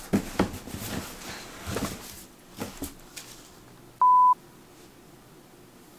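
A few soft knocks and rustles of a cardboard shoe box being handled, then, about four seconds in, a short, loud, steady electronic bleep of the kind edited in to censor a word.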